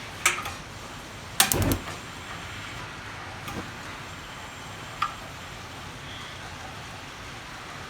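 Propane patio heater being test-fired after a tilt-switch repair: a sharp click, then a low thump about a second and a half in as the burner lights, and another click later, over a steady hiss.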